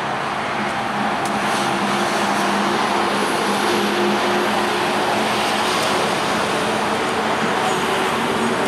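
Steady road traffic noise: a continuous rush with a low engine hum under it.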